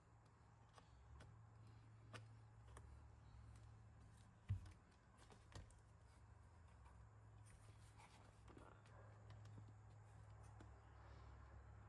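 Near silence with a low steady hum. Faint clicks of small parts being handled on a radio-controlled model truck chassis, with one louder knock about four and a half seconds in.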